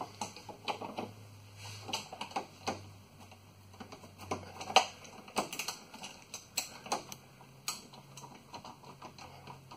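Irregular metallic clicks and taps of hand tools working on a brake line fitting, several a second, with a sharper knock about halfway through.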